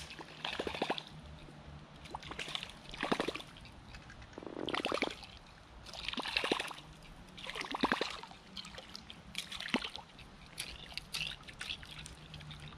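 Whopper Plopper topwater lure gurgling and splashing across the water surface as it is reeled in, in repeated bursts about every second and a half, with smaller splashes near the end.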